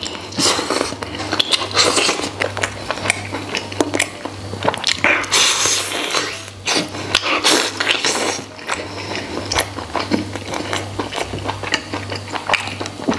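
Close-up mouth sounds of a man biting into and chewing braised pork spare ribs, with a rapid run of wet smacks and clicks as meat is pulled from the bone, over background music.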